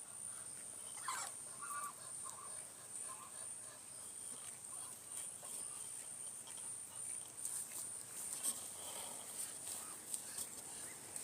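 Faint outdoor ambience with scattered short bird calls.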